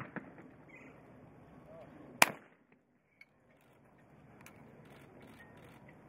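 A single shot from a 12-gauge Perazzi trap shotgun about two seconds in, one sharp crack with a short echo. Faint clicks are heard before and after it.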